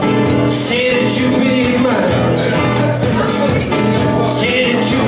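Live band music: guitar playing over a steady drum beat.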